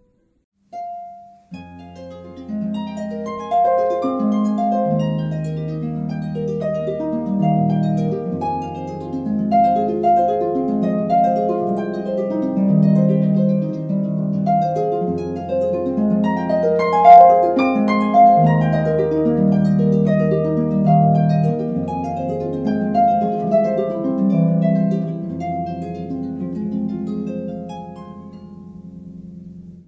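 Instrumental background music of plucked notes over long held bass notes. It starts with a single note, fills out a moment later and fades down near the end.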